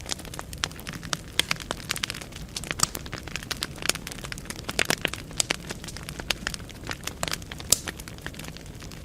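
Firewood burning in a fireplace: a low steady rumble of flame with irregular sharp crackles and pops, busiest about halfway through.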